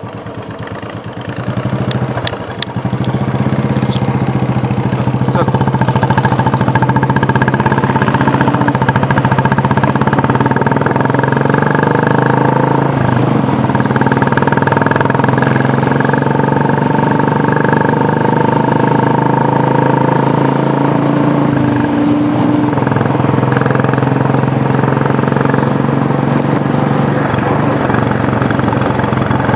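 Motorcycle engine running at road speed, mixed with wind and road noise. It grows louder over the first several seconds as it gathers speed, then holds a steady cruising note.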